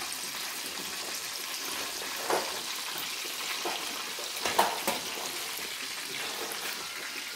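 Breaded pork cutlets deep-frying in a pan of oil, a steady sizzling hiss, the cutlets already deep brown. A few short taps of metal tongs sound over it, the loudest about four and a half seconds in.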